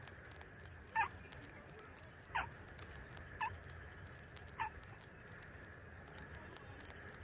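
Nursing puppies squeaking: four short, high whimpers, each dropping in pitch, about a second apart, over a faint steady hum.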